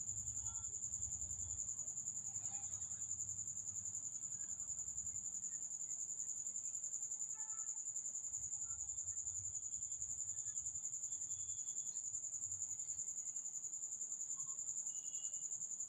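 A cricket trilling continuously at a high pitch, one steady unbroken note with a fast flutter.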